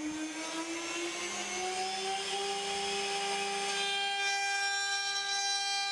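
CNC router spindle motor spinning up: a whine that rises in pitch over the first two seconds or so, then holds steady at full speed.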